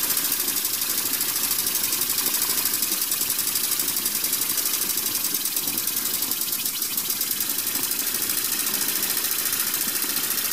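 Small homemade steam engine running fast on live steam: a rapid, even beat from the cylinder over a steady hiss of escaping steam. The piston has been sanded a little too small, so steam blows past it.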